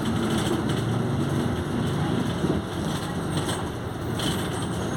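Volkswagen 15.190 OD city bus under way, its engine revving high and the differential growling, with a few short rattles.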